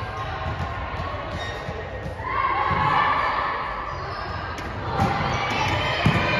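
Volleyball play in an echoing gymnasium. A player's voice calls out about two seconds in, then the ball is hit sharply twice near the end as it is served and passed, over the scattered thuds of balls from the hall.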